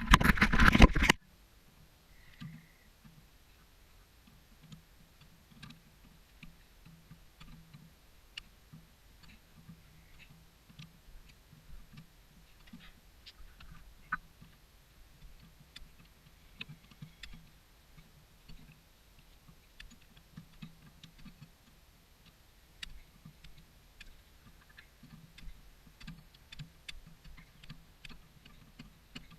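A loud burst of noise lasting about a second, then faint scattered clicks and taps of hand tools working on a diesel engine.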